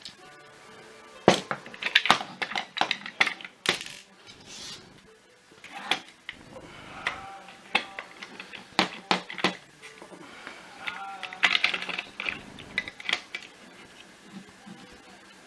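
Hard plastic parts of a cordless vacuum cleaner's floor head clicking and clattering as they are handled and pulled apart: irregular sharp knocks in clusters, loudest early on and again about two thirds of the way through.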